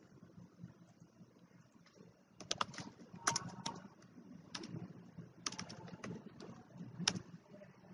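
Computer keyboard being typed on: short runs of sharp key clicks, starting a little before the middle and ending with a single click near the end.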